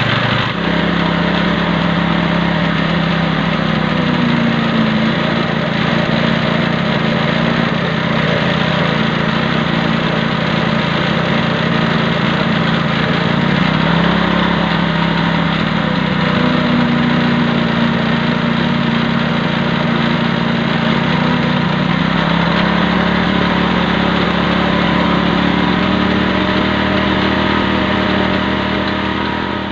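GX160-type single-cylinder four-stroke engine running a primed centrifugal water pump at a steady speed, its pitch shifting slightly a few times as the pump takes up water. Water splashes out of the pump.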